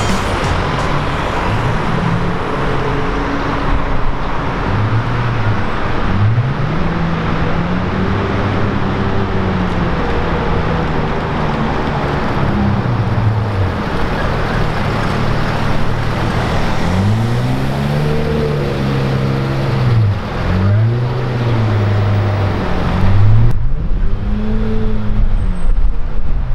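Pagani Zonda's V12 engine revving in repeated rising-and-falling blips at low speed, over steady city traffic noise.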